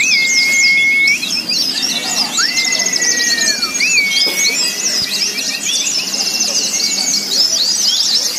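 Many white-eyes (pleci) singing at once, a dense, unbroken mass of quick high chirps and trills: the din of a songbird contest. A few long, level whistled notes sound over it, and a low crowd murmur runs underneath.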